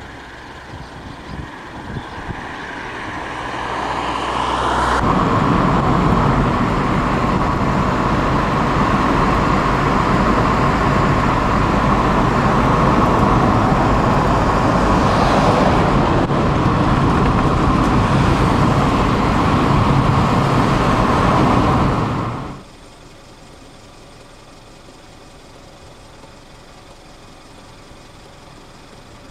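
Car driving, with road and wind noise heard from inside the car: it grows louder over the first few seconds, then stays steady. It cuts off abruptly about 22 seconds in, leaving a much quieter steady background.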